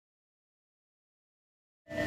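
Dead silence until just before the end, when a Japanese railway level-crossing bell starts ringing with its repeated clang over a steady tone.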